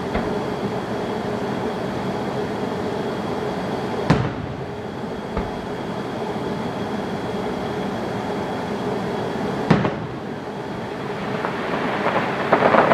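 Fireworks: two sharp single bangs about four and ten seconds in, then rapid crackling near the end, over a steady droning background.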